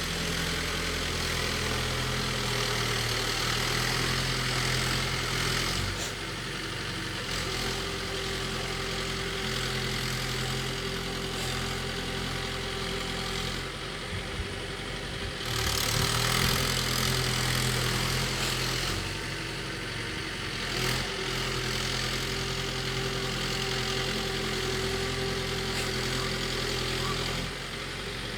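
Engine of a ploughing machine running steadily as it works the field, its note shifting a little and growing louder for a few seconds a little past halfway.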